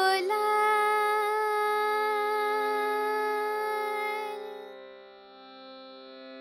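A woman's singing voice ends a Hindi semi-classical song on a long held note over a steady drone accompaniment. The voice fades out about four and a half seconds in, and the drone carries on more quietly.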